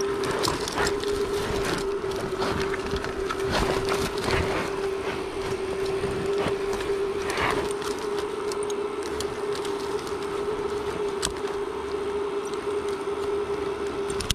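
Close rustling of shrub branches and leaves with scattered clicks and knocks of a metal rope descender and carabiner as a climber works on a cliff rope. Under it runs a steady hum of one pitch.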